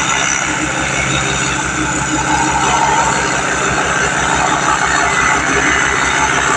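A machine's engine running steadily, with a fast, even low throb under a loud, constant wash of mechanical noise.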